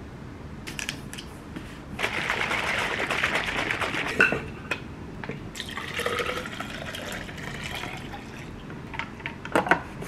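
Chocolate drink poured from a plastic jug into a tall plastic tumbler. The pour begins about two seconds in, and a second pour follows. A few sharp clicks near the end come as the lid is pressed onto the tumbler.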